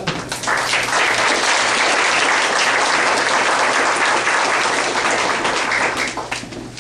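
Audience applauding, steady for several seconds and dying away near the end.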